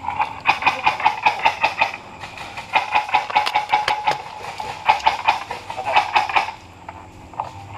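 Airsoft rifles firing on full auto: three long bursts of rapid shots, about seven a second.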